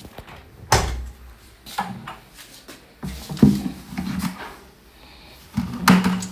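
A Hisense washing machine being opened and handled: a sharp click about a second in, then several lighter knocks and bumps.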